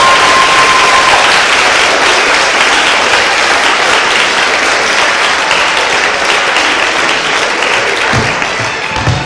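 Audience applauding, an even clatter that slowly dies down. A few low thumps come near the end.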